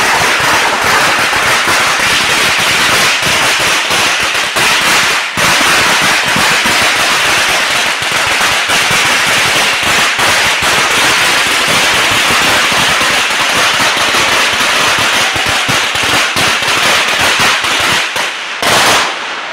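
A long string of Chinese firecrackers exploding in a rapid, unbroken crackle of pops, with a very short break about five seconds in. It thins near the end and stops after a final loud burst.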